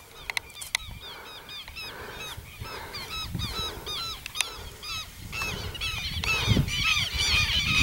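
A flock of birds calling over open grassland: many short, harsh calls repeated and overlapping, growing louder toward the end. A few clicks near the start and low thumps from the microphone.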